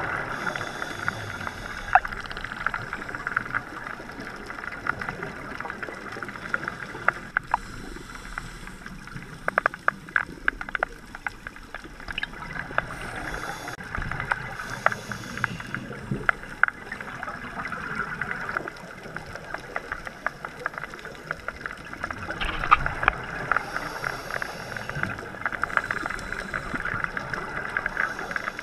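Underwater sound through a diving camera's housing: a steady muffled hiss with scattered sharp clicks and crackles, and short bursts of scuba breathing bubbles every several seconds.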